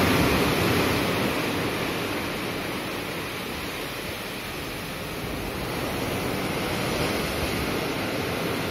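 White water churning and rushing along a ship's hull in rough sea, with wind buffeting the microphone. The rush eases a couple of seconds in and builds again towards the end.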